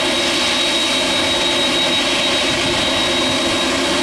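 Boeing 747-8 freighter's four GEnx turbofan jet engines running at taxi power: a steady rushing hum with a constant high whine over it.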